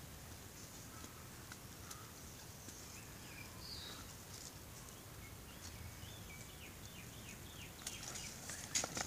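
Dry twig and sand rustling as a dog wriggles on its back and paws and mouths at the twig, mostly quiet with a few faint high chirps in the middle and a short burst of scratchy rustling near the end.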